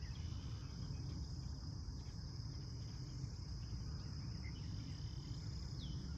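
Crickets trilling in a steady, high-pitched chorus, over a low rumble, with a few faint bird chirps.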